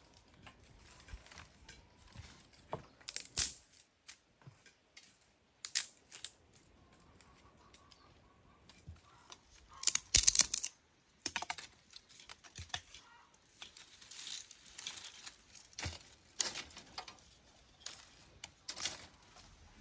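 Dry brushwood twigs rustling and cracking as they are handled and pushed into a clay tandoor oven pit, in irregular sharp snaps with quieter rustling between, the loudest cluster about ten seconds in.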